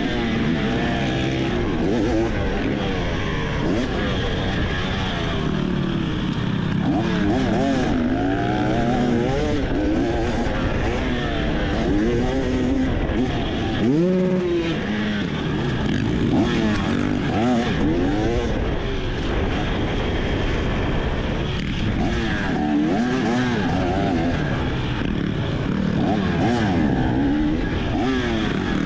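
Fuel-injected two-stroke engine of a 2023 KTM 300 XC dirt bike heard from the rider's seat, revving up and dropping back again and again as the throttle is opened and chopped through the corners and straights, with one sharp rise and drop about halfway through.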